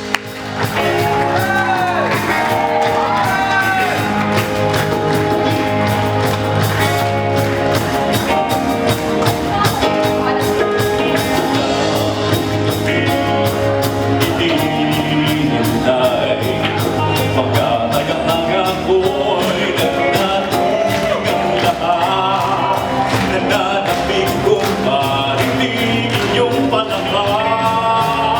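Live performance by a vocal group: several voices singing over band accompaniment with a steady beat and a sustained bass line.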